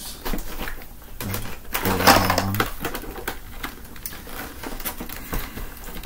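Plastic clicking and clattering as the flexible hose of a Hoover Empower upright vacuum is handled and unclipped from the machine, with the vacuum switched off. A louder stretch of rubbing and clatter comes about two seconds in.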